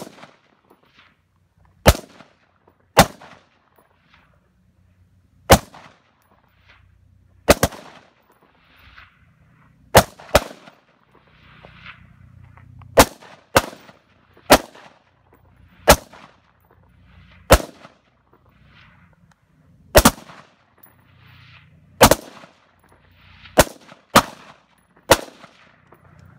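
Two AR-style rifles firing single shots at an uneven pace, about twenty reports in all, some coming in quick pairs as the two shooters' shots overlap.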